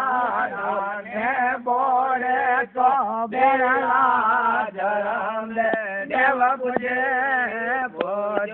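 A man singing a devotional chant in long, wavering phrases, with a few sharp taps in the second half.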